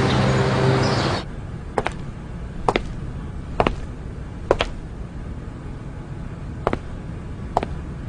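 Background music that cuts off about a second in, then footsteps on a hard floor, a step a little under every second with a short pause in the middle.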